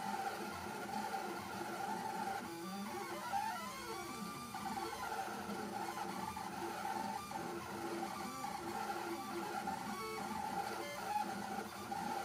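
Stepper motors of an MPCNC Primo pen plotter whining as the machine draws. Several steady tones sound together, and a few seconds in they slide up and down in pitch as the pen traces curves.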